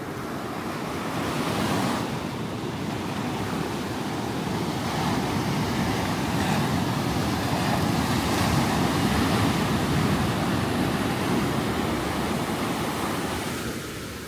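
Ocean surf breaking and washing up the beach, swelling about two seconds in and again through the middle, then easing off near the end.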